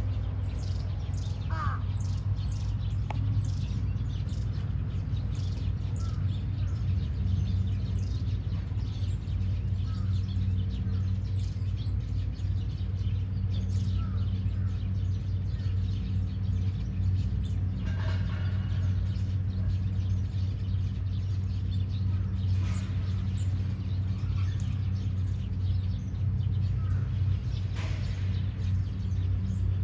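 Small birds chirping over and over, short high calls that fall quickly in pitch, over a steady low hum.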